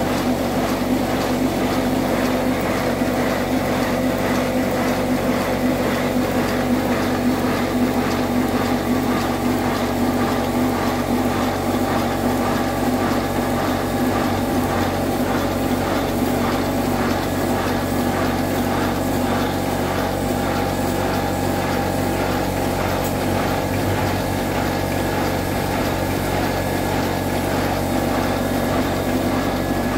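Chassis of a 7¼-inch-gauge model of the class 41 steam locomotive running on compressed air on a roller stand: a steady rhythmic chuffing from the air-driven cylinders, with the rods and valve gear clattering, over a steady hum.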